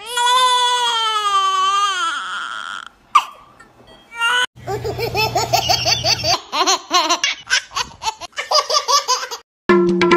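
A newborn baby's long wavering cry that falls in pitch, then, from about four and a half seconds in, a baby laughing in many short quick peals. Drum-led music comes back just before the end.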